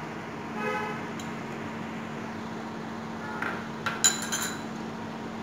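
A small metal spoon clinking against a little serving bowl a few times while seasoning is scooped out, the loudest clink about four seconds in. A steady low hum runs underneath.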